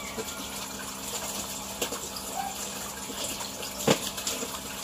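Water running steadily into the fish tanks, with one sharp knock about four seconds in.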